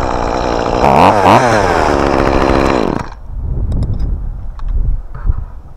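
Chainsaw running at high revs, its pitch dipping and recovering twice about a second in, then falling as the throttle is let off, its sound dropping away about three seconds in. Only faint knocks and rustle follow.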